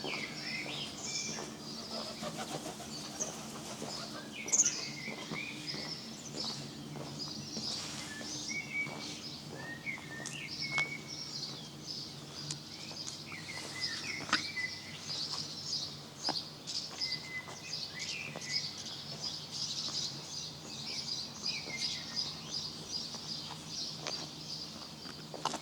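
Several songbirds chirping and singing: a dense, continuous run of high twittering calls, with short whistled phrases now and then, over a steady low hum.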